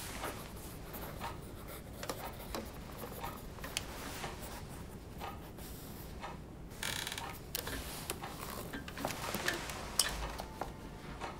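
Pencils scratching on paper as two people write, with scattered small taps and rustles of paper. A brief rustle comes about seven seconds in, and a sharp click, the loudest sound, about ten seconds in.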